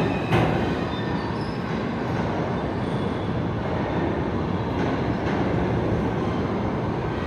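R160 subway train pulling out of the station, a steady rumble of steel wheels on the rails. Two sharp knocks right at the start, and faint thin wheel squeals now and then.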